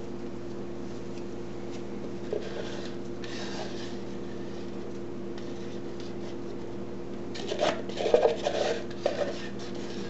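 A spatula scraping soap batter out of a plastic pitcher, in a few rough strokes: faint at first, then a louder run of scrapes late on. A steady low hum underneath.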